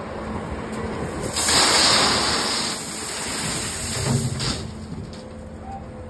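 Gravel pouring from a skid steer's bucket into the steel aggregate bin of a volumetric concrete mixer: a rushing hiss starting a little over a second in and tailing off, with a low thump near the middle, over the loader's engine running.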